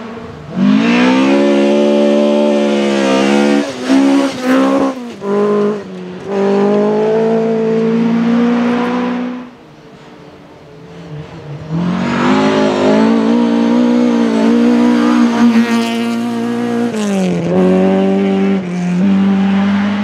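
Rally car engines at high revs through a corner in two separate passes, with throttle lifts and gear changes partway through the first. The first pass cuts off abruptly about halfway through, and a second car's engine builds up and holds high revs to the end.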